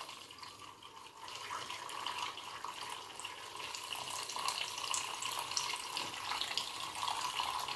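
Liquid being stirred in a plastic measuring cup: a continuous swishing with many small clicks of the stirrer against the cup, mixing musk into a homemade perfume so it dissolves.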